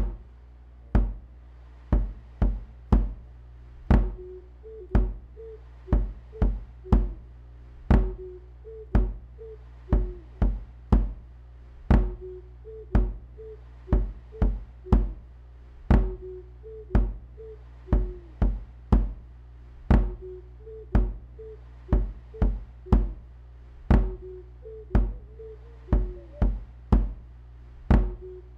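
Live electronic music: a drum-machine beat with a strong kick about once a second and sharp clicks between the kicks, over a steady low bass, with a short repeating melody in the middle register played on a small hand-held wind instrument.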